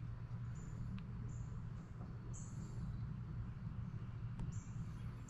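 Quiet woodland ambience: short high-pitched wildlife calls recurring every second or so over a steady low rumble, with a couple of faint clicks.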